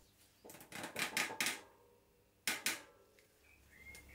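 Metal clicking and rattling as a bicycle cassette lock ring and its spline tool are fitted and turned on the rear hub: a run of clicks about half a second in, then a shorter burst a second later.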